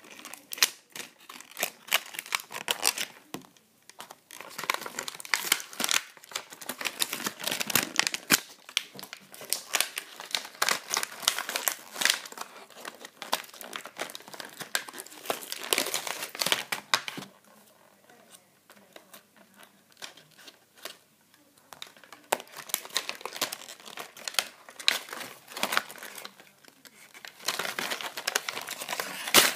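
Plastic toy packaging and sellotape being crinkled and torn off by hand in quick, irregular bouts of rustling, with a quieter spell a little past the middle.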